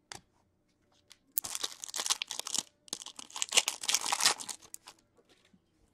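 Foil trading-card pack being torn open and crinkled by hand, in two crackling spells.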